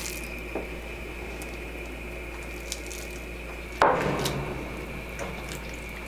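Wooden spoon stirring ground pork fat in a cast-iron pot, squishing softly, with one louder knock of the spoon about four seconds in.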